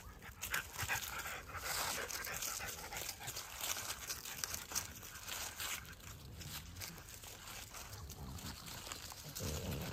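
French bulldog puppies moving about on dry leaves and dirt: irregular rustling and crackling with small dog sounds, and a short deeper sound near the end.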